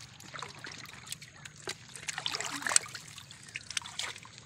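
Shallow water trickling and splashing in many small, irregular splashes as a fishing net is hauled in by hand through the water.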